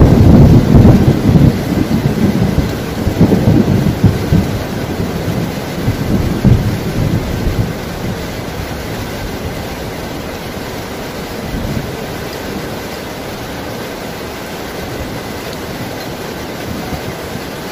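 Thunder rolling with several loud peaks over the first seven or so seconds, then fading into the steady sound of heavy rain.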